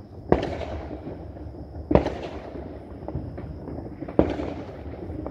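Fireworks going off: three sharp bangs about two seconds apart, each trailing off in an echoing rumble.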